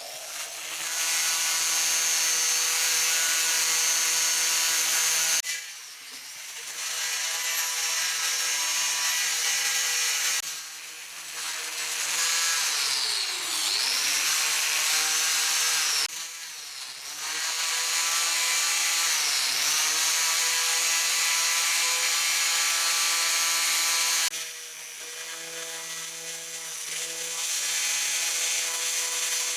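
A small electric power tool working on rusty steel pliers, its motor running with a steady hum and a grinding hiss. It eases off several times, and its pitch sags twice when it is pressed hard into the work.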